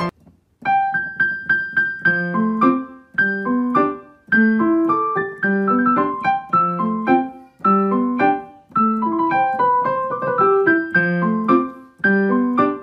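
Background piano music: a light melody of quick struck notes over a repeating lower line, in steady rhythmic phrases.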